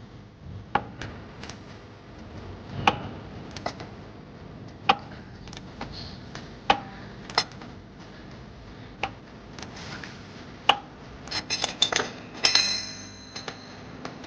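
Irregular metallic clinks and taps of tools and parts during suspension work: about a dozen separate sharp strikes, then a quick run of clinks near the end.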